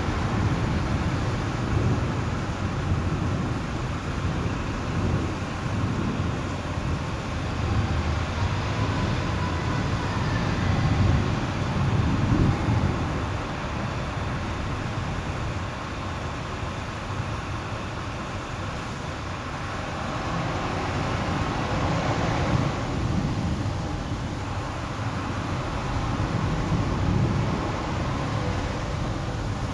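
Urban night ambience: a steady low hum of distant traffic, with a few slow swells as vehicles pass, one louder and brighter than the rest about two thirds of the way through.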